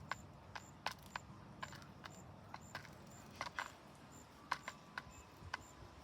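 Pigeons pecking at food, sharp irregular clicks a few each second.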